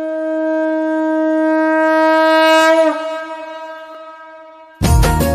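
A conch shell (shankha) blown in one long, steady note that swells, wavers and breaks off about three seconds in, then tails away. Near the end, loud devotional music with a beat starts abruptly.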